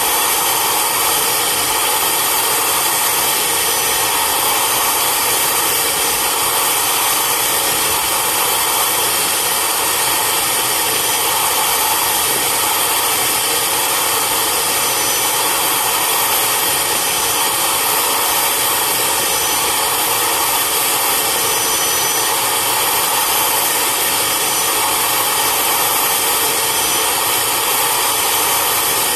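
Carpet extractor's vacuum motor running steadily with a loud, high-pitched rushing as its upholstery tool is worked over a fabric car seat to extract the shampoo.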